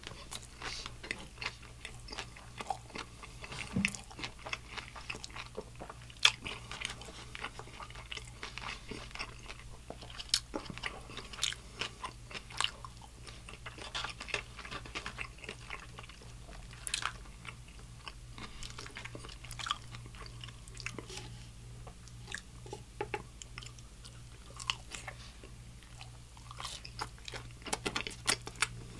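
Close-miked chewing of a crispy fried chicken slider and fries: sharp, irregular crunches of the breading a few times a second, with wet chewing between them, over a low steady hum.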